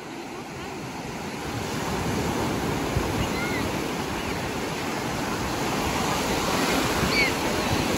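Ocean surf breaking and rushing up over the shallows, close by, growing steadily louder as the waves come in.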